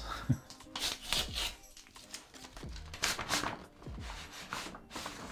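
Black printed wrapping paper rustling and crinkling as it is pulled off a framed display piece, in several bursts.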